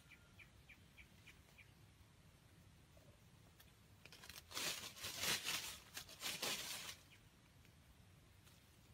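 Chicken scuffling and flapping in dry leaf litter: about three seconds of loud, dry rustling from about four seconds in, after a few faint high chirps.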